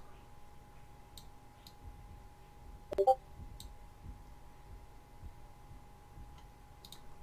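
Computer mouse clicking a few times, spaced out, with one louder knock that rings briefly about three seconds in, over a faint steady hum.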